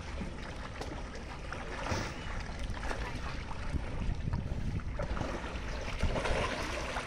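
Water sloshing and lightly splashing in an above-ground swimming pool as a child swims past, a steady quiet wash with scattered small splashes.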